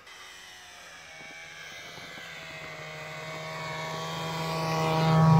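Snowmobile engine running as it approaches, growing steadily louder and loudest near the end.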